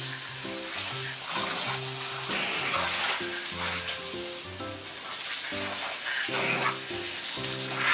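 Garden hose jet spray hissing steadily as it hits a glass window pane and its frame, with background music playing over it.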